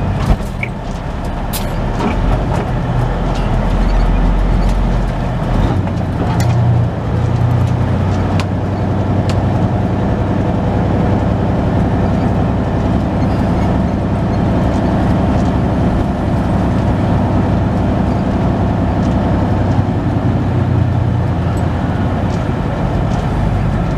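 Semi truck's diesel engine running as it creeps along at low speed, heard from inside the cab as a steady low rumble; the deepest part of the rumble drops away about five seconds in.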